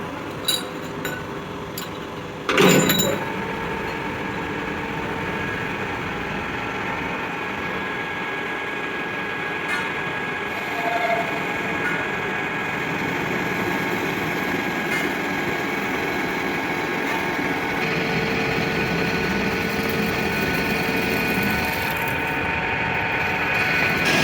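Metal-turning lathe running steadily, with a sharp metal clank about two and a half seconds in.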